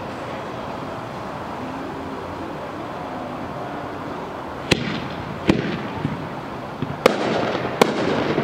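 Aerial fireworks: four sharp bangs of shells bursting overhead, starting about five seconds in, with crackling after the third bang.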